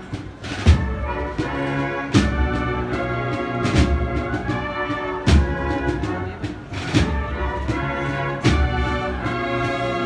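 A cornet-and-drum band (banda de cornetas y tambores) plays a slow processional march. The cornets carry the melody in several parts, over the drums, with a heavy low drum stroke about every second and a half.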